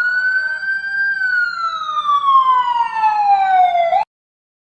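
Siren sound effect: one long wail that climbs in pitch during the first second, then slides slowly down for about three seconds and cuts off abruptly.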